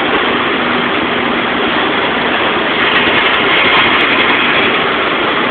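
Electric arc welding on a scooter's metal: a steady, loud crackling hiss of the welding arc, with a faint hum underneath.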